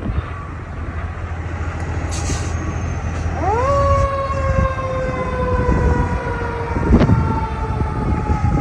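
Fire engine's siren winding up about three and a half seconds in, then slowly falling in pitch, over the low rumble of the truck's diesel engine. A short hiss comes about two seconds in and a sharp knock about seven seconds in.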